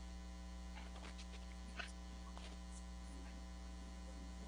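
Faint, steady electrical mains hum with a faint click a little under two seconds in, and no voice: the guest's video-call audio has dropped out.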